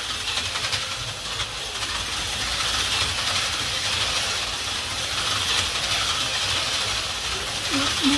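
HO-scale LifeLike stadium truck slot cars running laps on an AFX track at 18 volts: a steady high whir and hiss from the small motors and wheels on the plastic track, swelling and fading as the trucks pass.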